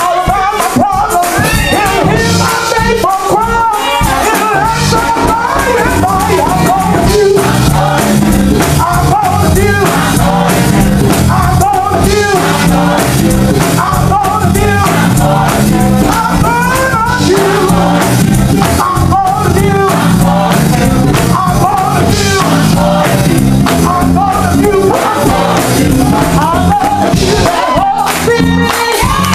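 Gospel choir singing live, a lead singer on a handheld microphone over the full choir, with hand clapping and instrumental backing that carries a steady low bass line and beat.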